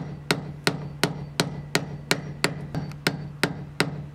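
A hammer tapping a flat screwdriver to drive a worn plastic bushing out of a trailer's leaf-spring eye. The taps are sharp, even and steady, about three a second.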